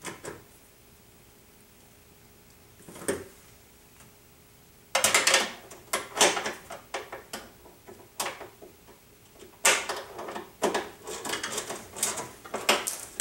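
Metal hand tools working on the window regulator's bolts inside a car door: a single click near the start and another about 3 s in, then irregular runs of sharp metallic clicks and clatter from about 5 s on.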